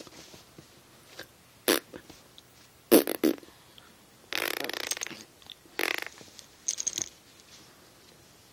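A Chihuahua making short raspy grunts and snorts while wrestling with a toy, in about five separate bursts, the loudest pair about three seconds in and a longer one a little later.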